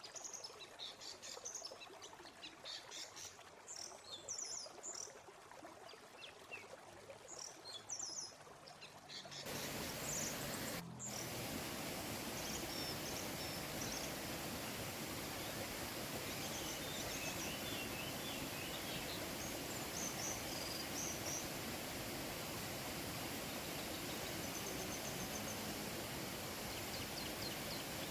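Birds chirping over the steady rush of a waterfall, which becomes much louder and fuller about nine seconds in.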